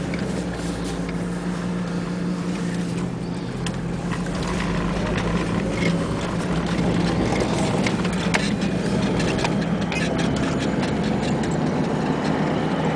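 A car's engine and road noise, heard as a steady hum while the car drives along.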